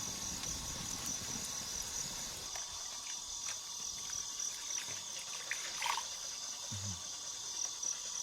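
Steady high-pitched insect chorus, crickets or cicadas, with a faint pulsing trill, and a few light clicks and a short chirp about six seconds in.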